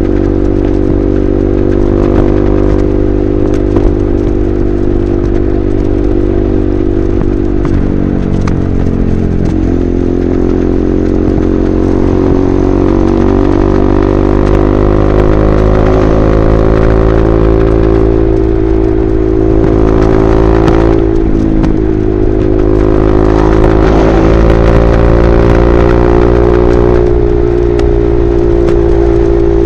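KTM RC 390's single-cylinder engine breathing through an aftermarket SC Project replica slip-on exhaust, running hard at highway speed. The pitch dips briefly and climbs back twice, about 8 and 21 seconds in.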